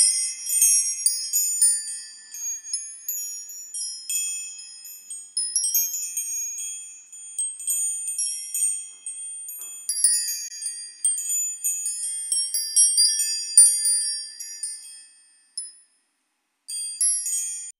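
Wind chimes tinkling: many high ringing notes that start at irregular moments and overlap, with nothing low beneath them. The notes stop for about a second near the end, then start again.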